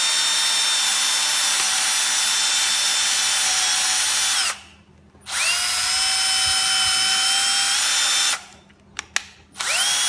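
Bosch GSB 12V cordless drill running a step drill bit through the plastic wall of a junction box, with a steady motor whine. The whine stops partway through, spins back up with a rising pitch, and stops again a few seconds later. A couple of sharp clicks follow, and the drill starts once more near the end.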